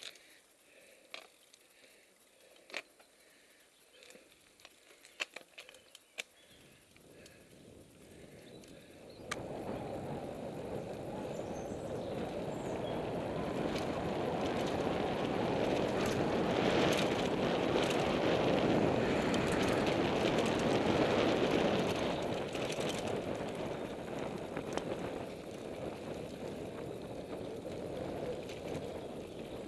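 Mountain bike ridden along a sandy dirt forest trail: scattered clicks and rattles for the first several seconds, then about nine seconds in a loud steady rushing noise sets in and lasts, strongest in the middle and easing a little near the end.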